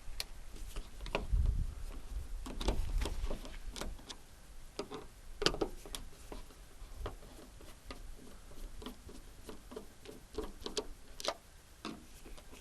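Irregular sharp clicks and light knocks from hand work on a car door lock mechanism, with some low handling rumble in the first few seconds.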